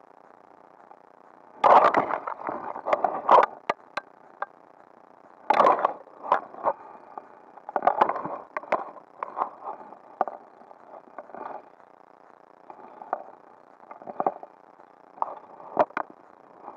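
Close-up handling noise: irregular bursts of rustling and scraping with sharp clicks, from the angler's hands and clothing working the fly line near the microphone. The bursts come in clusters about two seconds in, around five and a half seconds, and around eight seconds, then thin out into scattered clicks.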